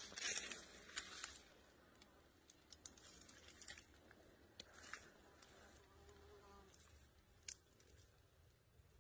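Faint buzzing of flies, with scattered light clicks and ticks; near silence overall.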